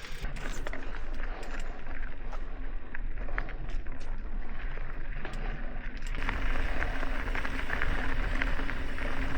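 Mountain bike riding over a dirt trail: tyres on dirt and gravel with the bike rattling and clicking over bumps, and the rear hub's pawls ticking as it coasts. The noise grows louder and brighter from about six seconds in.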